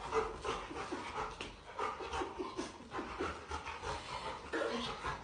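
Golden retriever panting quickly and excitedly, a fast, even run of breaths.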